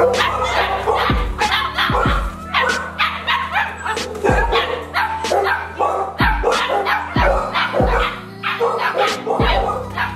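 Puppies yipping and barking in short, sharp bursts, over background music with deep, falling bass hits.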